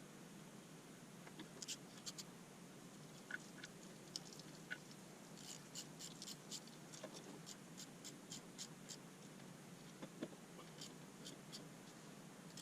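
Faint, scattered clicks and ticks over a low steady hum, with a run of about four clicks a second in the middle.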